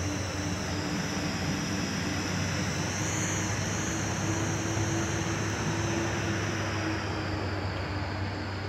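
A vehicle engine running steadily, a continuous low drone with a faint steady tone above it, under a steady high-pitched hiss.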